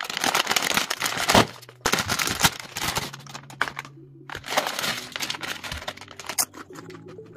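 Metallised plastic potato-chip bag crinkling in bursts as it is handled, opened and tipped. The chips shift and rustle inside it, with quieter rustling near the end as they slide out.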